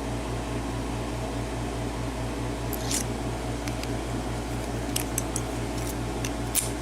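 A few light, sharp clicks of a key being worked in a MAC six-pin padlock, over a steady low hum.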